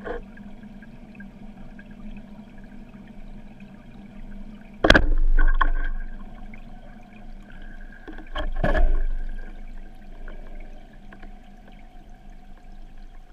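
Underwater recording of a wooden roller speargun being fired at a target: two loud, sharp knocks, about five and eight and a half seconds in, each ringing on briefly, over a steady underwater hiss.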